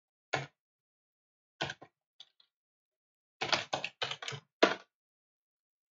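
Computer keyboard keystrokes: a few scattered key presses, then a quick run of about six strokes about three and a half seconds in.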